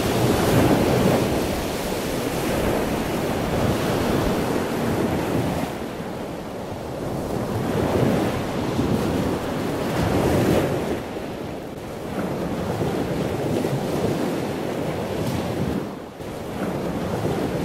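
Ocean surf washing in over lava rocks and sand, swelling and falling every few seconds, with wind buffeting the microphone.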